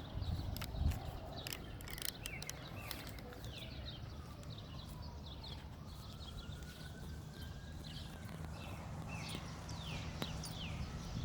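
Birds chirping repeatedly in short, quick down-sweeping notes over a steady low rumble, while a faint distant siren wails slowly up and down through the middle.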